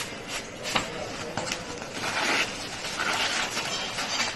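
A knife cutting through the crisp baked crust of a pide on a wooden board: short knocks and crunching, scraping strokes, with two longer scrapes around the middle.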